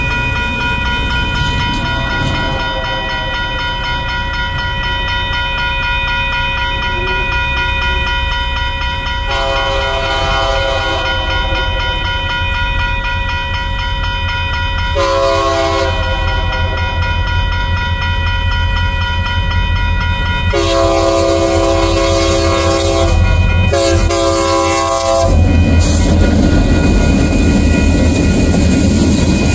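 Union Pacific freight locomotive's horn blowing the grade-crossing signal as the train approaches: a faint first blast, then a long, a short and a final long one. A railroad crossing bell rings steadily throughout. Near the end the lead diesel locomotives pass close, and the engines and wheels rumble loudly.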